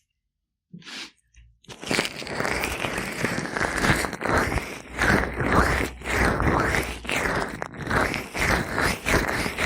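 Gloved hands massaging an oiled binaural microphone ear, a close, crackly rubbing and squishing in quick strokes about twice a second, starting about two seconds in after a brief touch.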